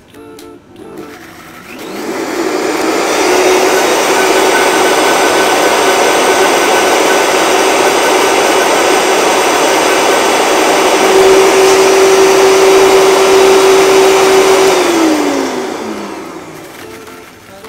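High-speed countertop blender puréeing a watercress and sasa-tea sauce, in a repeat blend to make it smooth. The motor spins up with a rising tone about two seconds in, runs loud and steady for about twelve seconds, then winds down with a falling tone and stops.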